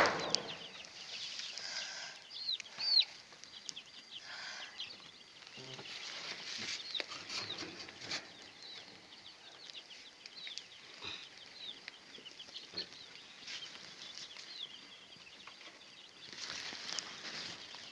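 A flock of young broiler chicks peeping: a steady stream of many short, high chirps, with a few brief rustles now and then.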